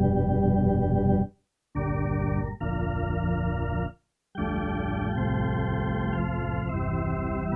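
Wersi City Rack KF2 organ module playing held organ chords. It stops dead twice between chords, at about a second and a half in and at about four seconds. In the last long chord some notes change several times.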